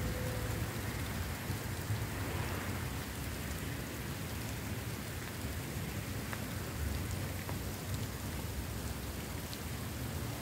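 Steady hiss of rain falling on wet pavement, with wind buffeting the microphone as an uneven low rumble.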